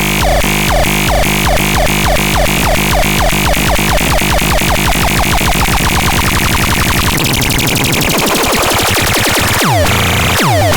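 Electronic synthesizer sounds: a repeating short, falling blip that speeds up steadily, dissolving into a noisy wash, then a few sharp downward-sweeping zaps near the end.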